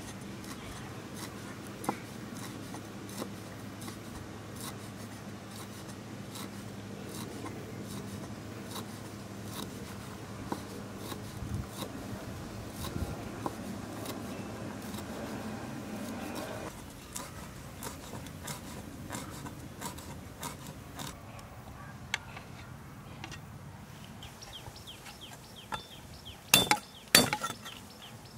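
Steel cleaver finely slicing thin green leaves on a round wooden chopping block: a quick run of light knife taps on the wood, with two louder knocks near the end.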